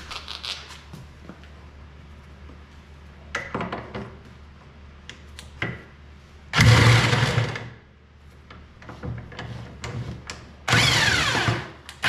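Light clicks and knocks of a socket and extension being fitted onto a clutch puller bolt. Then a half-inch electric impact wrench runs in two bursts, the second near the end, driving the puller to break the snowmobile's drive clutch free of the crankshaft.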